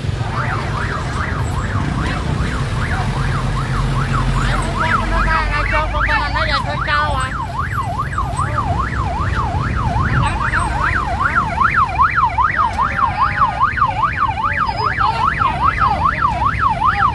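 Emergency vehicle siren in a fast yelp, its pitch sweeping up and down about three times a second, over a low engine rumble.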